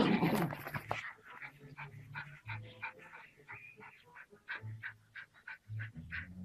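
Small dog giving quick, short yips and whines, excited at a snake it is squaring up to, after a loud rustling burst in the first second.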